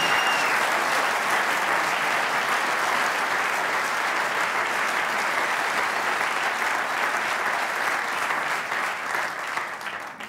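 Studio audience applauding, a steady dense clapping that dies away near the end.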